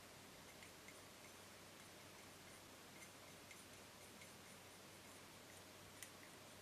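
Near silence with faint, scattered light ticks: a toothpick and tiny polymer-clay pieces tapping against a small metal tin, with one slightly sharper click about six seconds in.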